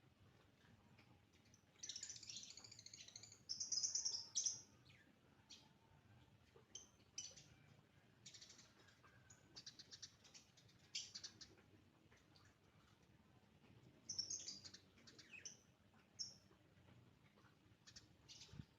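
Eurasian tree sparrow chirping: scattered bursts of short, high chirps, busiest about two to four seconds in and again around fourteen to sixteen seconds in.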